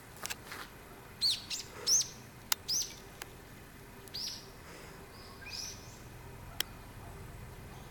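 A small bird chirping: about half a dozen short, high, arching notes in the first six seconds, with a couple of sharp clicks among them.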